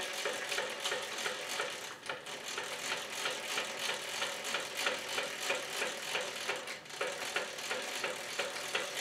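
Drill press table being cranked down its square column, its gearing giving a quick, even run of ratchet-like clicks.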